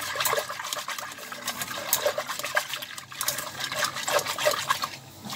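A silicone whisk briskly stirring milk with sugar and starch in a metal pot: liquid sloshing with quick, irregular clicks and splashes. The mixture is whisked cold to keep the starch from forming lumps.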